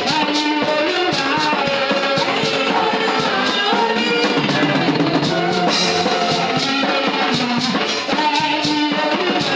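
Praise-and-worship music: voices singing a melody over a drum kit and guitar keeping a steady beat.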